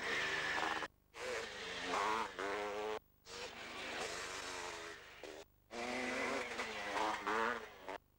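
500cc two-stroke motocross bikes racing past, engines revving up and down with each gear and throttle change. The sound drops out briefly four times, about every two seconds.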